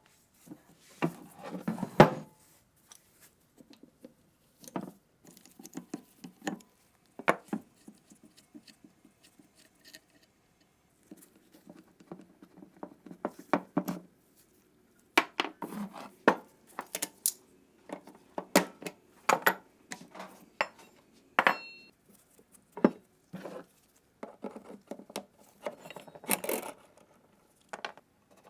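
Metal parts and tools being handled during a machine-gun rebuild: irregular clinks, knocks and short scrapes, with one brief ringing clink a little past the middle.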